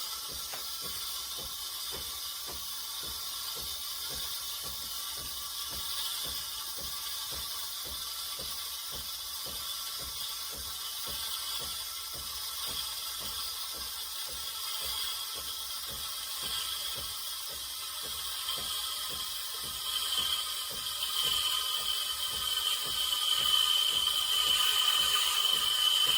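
Steam wand of a De'Longhi La Specialista Touch espresso machine hissing steadily in a jug of milk during automatic frothing and heating, with a fast even pulsing underneath. A high whistling tone comes in about twenty seconds in and grows louder toward the end.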